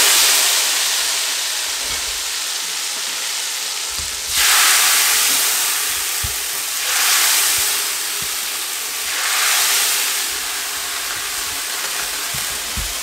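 Hot ghee tadka of cumin and whole red chillies sizzling and hissing loudly as it is poured from a frying pan into a pot of kadhi. The sizzle swells again about four, seven and nine seconds in as more is scraped out of the pan with a ladle, with a few faint knocks of the ladle.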